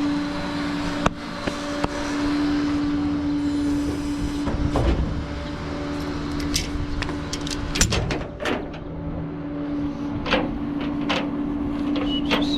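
A vehicle engine running with a steady hum, with scattered metallic clicks and knocks over it, several of them close together about two-thirds of the way in.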